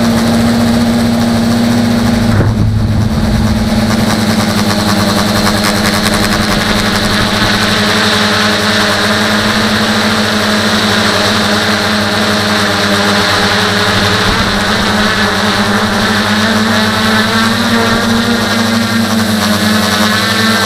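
Tricopter's three electric motors and propellers whining steadily, heard close from the craft's onboard camera. The pitch briefly dips and shifts about two and a half seconds in, then holds steady.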